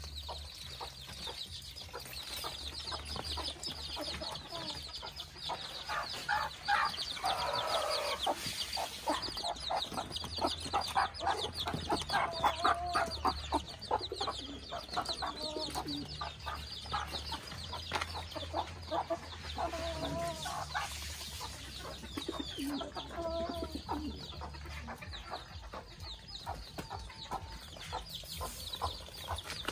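Bantam chickens clucking, with several drawn-out calls standing out above the clucks, over a busy high chittering.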